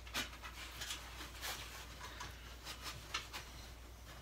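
Faint, scattered light clicks and scrapes of gloved hands handling the top of a small metal wood stove.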